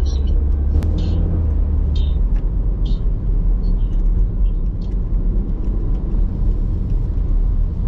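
Road noise of a car being driven, heard inside the cabin: a steady low rumble of engine and tyres.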